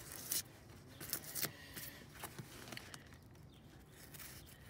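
Utility knife slicing and scraping cured spray-foam insulation off a vinyl tractor seat: a handful of short, faint scratchy cuts and crackles.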